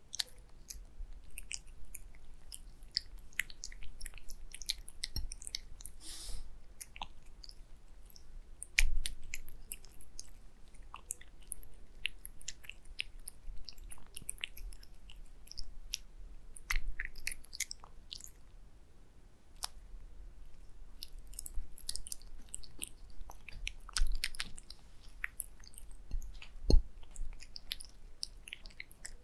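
A tabby cat eating wet cat food from a glass plate: irregular wet smacking, licking and chewing clicks, with a few louder knocks scattered through.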